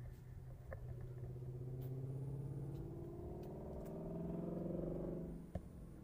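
A passing motor vehicle's engine, rising slowly in pitch as it speeds up, then fading out about five and a half seconds in.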